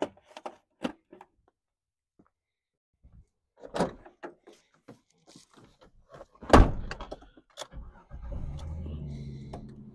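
Plastic clatter and scuffing as a dashboard is set down on gravel. Then a car door opens, is slammed shut about six and a half seconds in, and the Jeep Cherokee's engine starts and runs at idle near the end.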